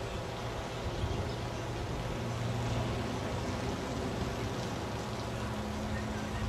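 Steady rush of strong wind and breaking ocean surf, with a low rumble of wind on the microphone.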